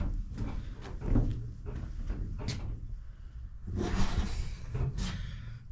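Irregular knocks and handling noise, with a short scraping rustle about four seconds in.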